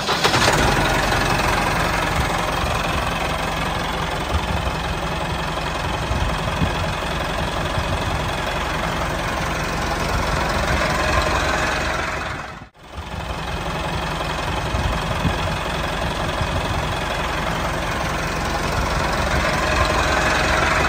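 Tractor engine running steadily. It drops out for a moment about 13 seconds in, then carries on.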